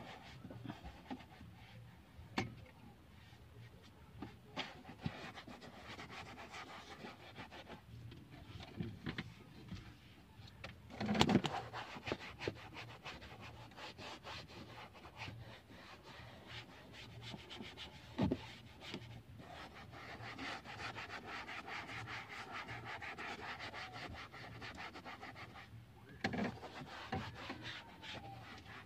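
Cloth rubbing and wiping over a car's plastic dashboard, with scattered light knocks and handling clicks and a louder clatter about a third of the way in.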